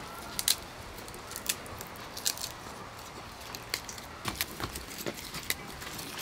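Garlic cloves being peeled by hand: dry papery skins crackling and snapping in scattered short clicks.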